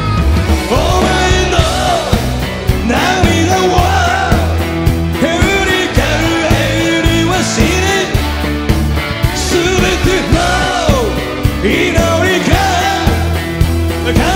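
Live rock band playing with a male lead singer: the sung vocal line comes in just under a second in, over drums, bass and guitars.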